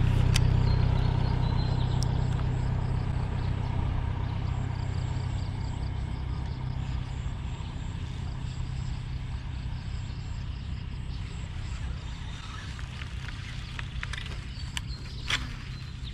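Motorcycle engine running with a low, even hum that slowly fades away. A few sharp clicks come near the end.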